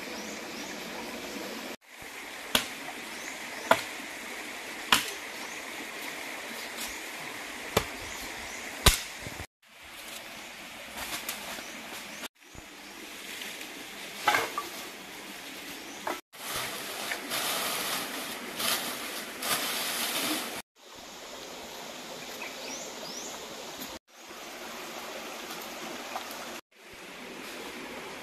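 Shallow creek running over stones, a steady babble of water broken by several abrupt cuts. Five sharp knocks stand out in the first ten seconds, and the water grows louder and hissier for a few seconds past the midpoint.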